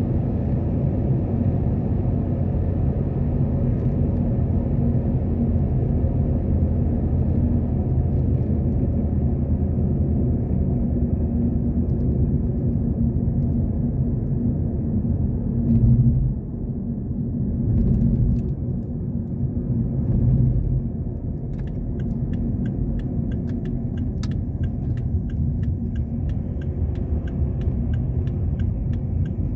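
Volvo V60 cabin noise while driving: steady low tyre and engine rumble that dips and swells a few times past the middle as the car slows into a curve. From about three-quarters of the way through, a turn-signal indicator ticks at a steady rate.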